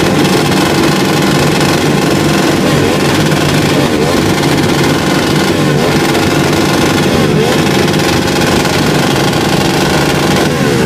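Three motorcycles revved together and held at high engine speed, their exhausts running loud and steady as one combined sound, with music playing underneath.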